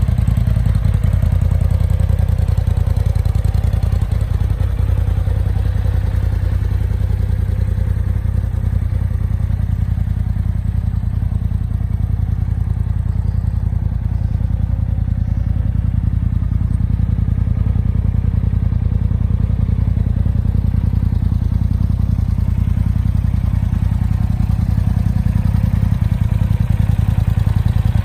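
2018 Polaris RZR XP Turbo's turbocharged twin-cylinder engine idling steadily.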